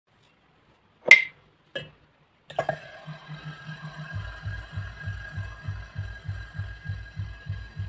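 Two sharp snaps, then a steady mechanical hum over a regular low pulse of about three beats a second.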